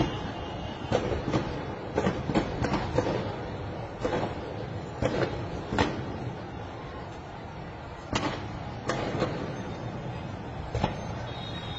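A steady noisy rumble with about a dozen sharp cracks or bangs at irregular intervals, some in quick pairs, loudest in the first half.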